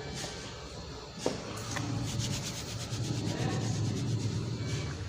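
Hands rubbing over a patient's body, with one sharp click about a second in and a low steady hum underneath.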